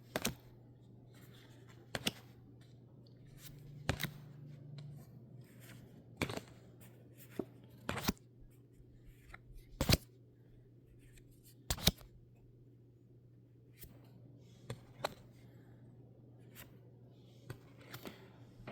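A booster pack of trading cards being opened and the cards handled: irregular sharp clicks and snaps of card stock and foil wrapper, a few of them loud, over a faint steady low hum.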